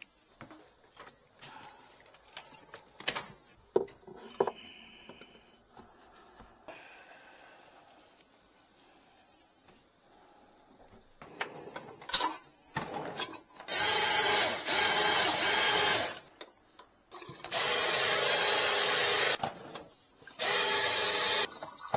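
Cordless drill spinning the cable of a RIDGID drum drain cleaner in three runs of a second or two each, clearing a kitchen sink drain clogged with grease. Before the runs there are quiet clicks and knocks of the tools being handled.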